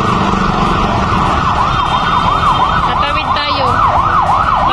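Ambulance siren in a fast yelp, its pitch rising and falling about three times a second, coming in about a second and a half in. Under it is a steady wash of street traffic noise.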